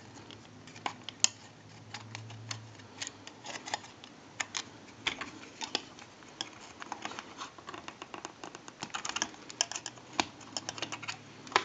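Small irregular clicks and scratches of a metal pick tool working at the pins of a desoldered 18-pin IC chip on a telephone circuit board, loosening the chip for removal. The clicks come more often in the second half.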